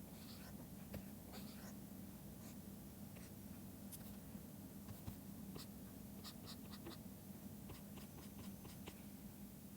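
Faint taps and short strokes of a stylus pen on a drawing tablet, in scattered clusters, over a low steady hum.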